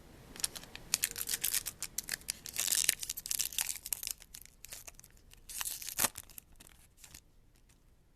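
The foil wrapper of a Magic: The Gathering booster pack being torn open and crinkled: a dense, crackly tearing for about three and a half seconds, then a shorter burst of crinkling a little later and a few last crackles.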